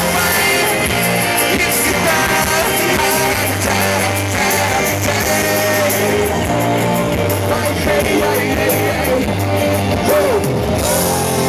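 Live rock band playing a song, with a voice singing over the instruments, amplified at an outdoor concert.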